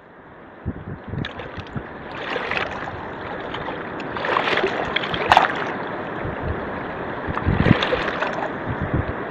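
A fast river rushing and splashing against boulders on its bank, with wind buffeting the microphone in low thumps. It fades in from silence at the start.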